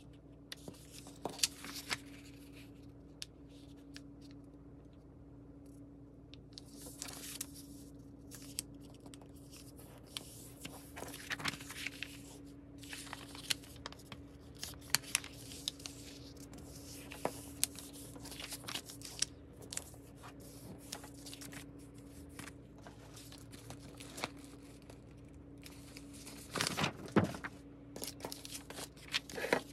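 Kraft paper being handled and folded by hand, sped up to double speed: rustling, sliding and crinkling with scattered small knocks, loudest near the end. A steady low hum runs underneath.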